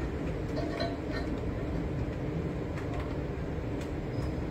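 Heavy rain falling over the city: a steady low rushing noise with a few faint ticks.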